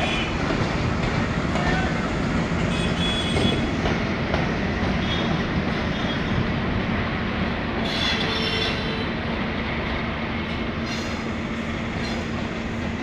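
WDG-3A ALCO diesel locomotive running, its 16-cylinder ALCO 251 engine giving a steady heavy drone and rumble. Short high-pitched squeals come through about 3 seconds in, again around 8 seconds, and near the end.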